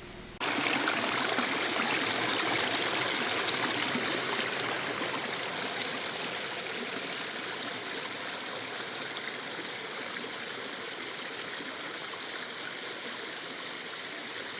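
Stream water rushing and splashing over rocks, a steady dense rush that cuts in sharply about half a second in and eases slowly toward the end.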